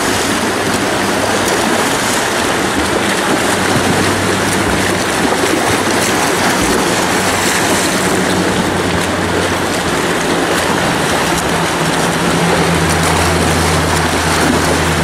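Pool water splashing and churning from swimmers doing freestyle laps, a steady rush of noise, with a low hum underneath that grows louder in the last few seconds.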